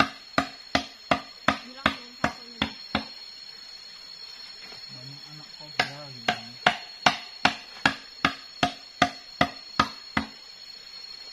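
A blade chopping down onto a wooden block in quick, even strikes, about three a second. A run of strikes stops about three seconds in, and after a pause a longer run starts near six seconds and ends about ten seconds in.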